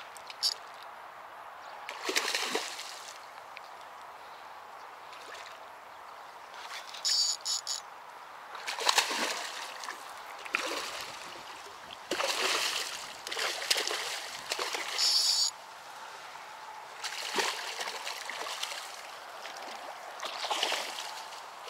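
A carp shot with a slingshot arrow thrashing at the water's surface close to the bank, in irregular bursts of splashing a second or several seconds apart.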